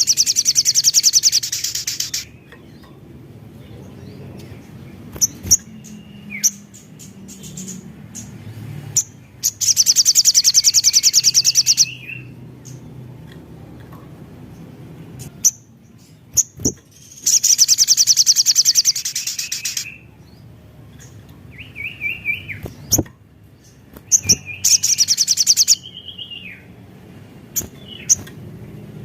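Crimson sunbird (sogon) singing: four bursts of a very fast, high-pitched trill, each lasting one to three seconds, with short sharp chirps and slurred notes between them.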